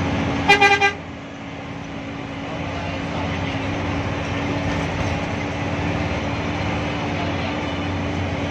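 A horn toots three times in quick succession about half a second in, over the steady drone of the Hino AK8 bus engine and road and rain noise heard from inside the cab. After the toots the drone drops and then builds back up over the next couple of seconds.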